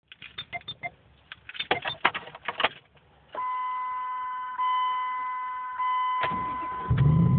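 A run of sharp clicks and rattles, then a steady dashboard warning chime for about three seconds with the key on. Near the end the starter cranks briefly and the warm 2004 Dodge Dakota's 4.7-litre V8 fires and runs with a loud, low exhaust note, its muffler and tailpipe removed.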